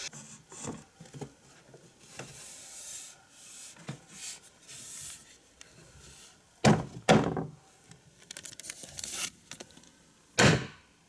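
Wooden parts of a flat-pack children's table being handled and fitted together: light rubbing and small knocks, with three louder thuds, two close together a little past halfway and one near the end.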